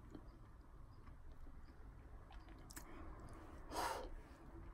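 Quiet room with a person's faint mouth noises after a bite of food, then one short breathy sigh about four seconds in.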